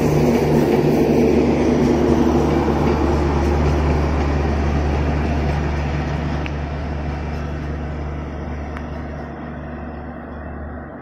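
Diesel-hauled passenger train moving through a rail yard: a steady low diesel engine hum over the rumble of the coaches, fading gradually over the second half.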